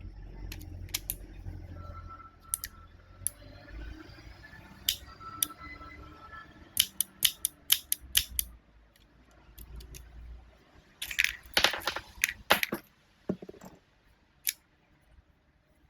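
Airsoft revolver being worked: a string of sharp mechanical clicks and snaps, with a quick run of about seven near the middle and a denser cluster a few seconds later, over a low hum.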